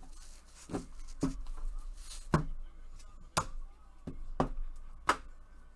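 Stacks of sleeved trading cards being set down and tapped on a tabletop: about seven sharp, irregular knocks.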